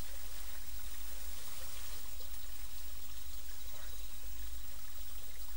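Steady hiss over a low hum, even throughout, with no distinct events.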